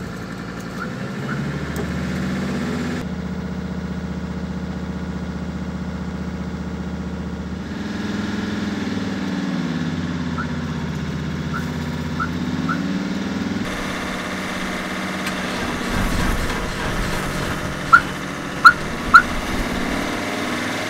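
Van engine running at raised revs, around 2,000 rpm, to push charge through jump leads into another van's flat battery; the revs sag and climb again partway through. Near the end come three short, sharp, high beeps, louder than the engine.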